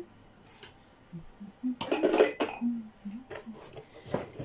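Dishes and cutlery clattering at a kitchen counter: a loud burst of clatter about two seconds in, then a few separate sharp clinks near the end.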